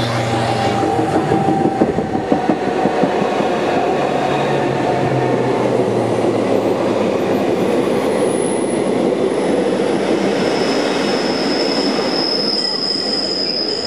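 An oncoming Rhaetian Railway train of red panoramic coaches passing close by on the next track, heard from a moving train: a loud, steady rush and rumble of wheels on rail, with a high wheel squeal setting in over the last few seconds.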